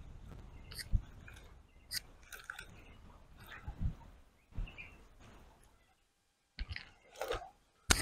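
Wind buffeting the microphone, dying away over the first few seconds, with scattered sharp clicks and knocks close to the microphone; a few louder knocks come near the end.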